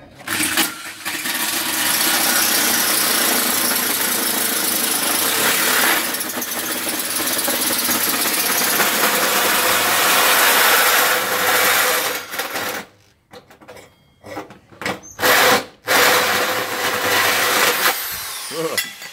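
Corded electric drill driving a hole saw through the sheet-steel front guard of a Toyota Prado 90 to cut the snorkel hole. It runs steadily under load for about twelve seconds, then goes in short stop-start bursts.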